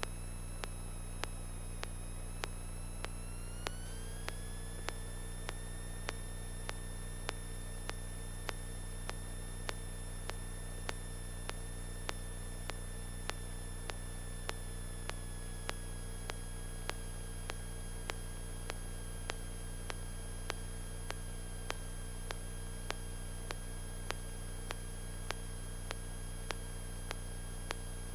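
Steady low hum in the Cessna 172N's cockpit audio as it rolls out along the runway at low power. A thin whine rises in pitch a few seconds in and then holds, and faint regular ticks come about twice a second.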